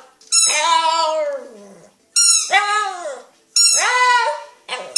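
A dog making three drawn-out, pitched vocal noises that arch up and fall in pitch, mixed with the high squeaks of a squeaky dog toy.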